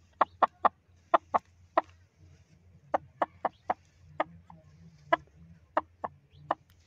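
Young Aseel rooster clucking: about fifteen short, sharp clucks in small bunches of two or three.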